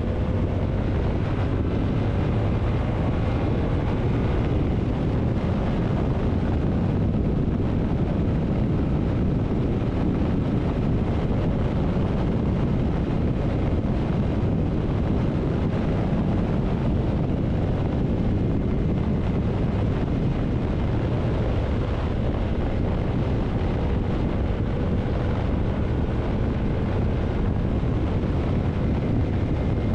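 Yamaha MT-07's parallel-twin engine running steadily at cruising speed, largely buried under heavy wind buffeting on the microphone.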